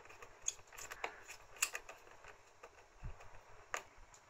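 Faint scattered clicks and taps as wires and small parts are handled while the motor leads are fitted into a controller's screw terminal.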